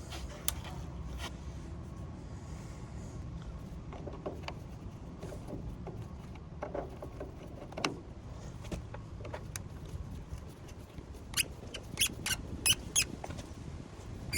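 Hand-tool and handling noises while a corroded part is removed from an air conditioner's wiring: scattered clicks and small squeaky scrapes, then a quick run of sharp ticks, about three a second, near the end.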